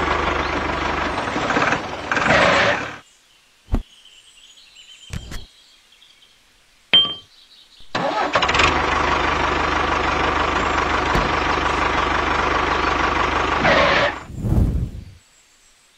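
Tractor engine running steadily and cutting off about three seconds in. After a lull with a few sharp clicks, it starts again about eight seconds in and runs until about fourteen seconds, followed by a short low thump.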